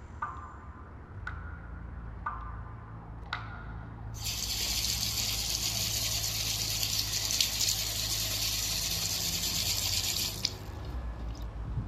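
A tap running into a washbasin for about six seconds: it starts about four seconds in and cuts off abruptly near the end. Before it, faint short ticks come about once a second.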